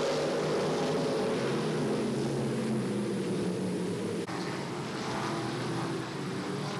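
Several IMCA stock car V8 engines running together at part throttle as the field circles slowly under a caution, a steady mixed engine drone.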